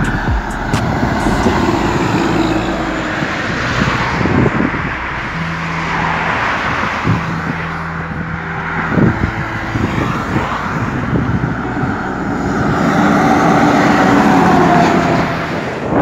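Highway traffic passing close by: a tanker truck and cars driving past, with tyre and engine noise swelling and fading as each goes by.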